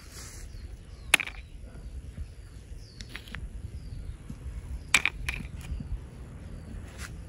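Small toy figurines being handled on a concrete floor: a few sharp clicks and knocks, about a second in, around three seconds, and a cluster around five seconds. Under them runs a low steady rumble, with faint high bird chirps in the background.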